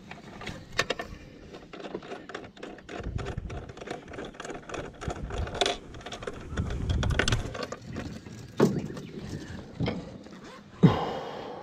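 Handling noises of a boat battery in a zippered soft case and its cable connectors inside an aluminium boat: scattered clicks, rustles and light knocks, with a sharper, louder knock near the end.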